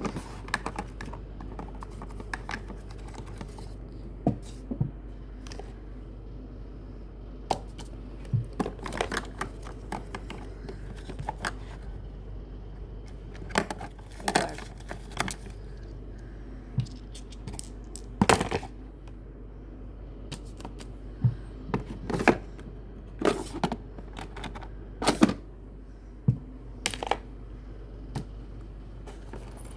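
Small objects being handled and set down on a hard surface: irregular clicks, taps and knocks, some singly and some in quick clusters, over a steady low hum.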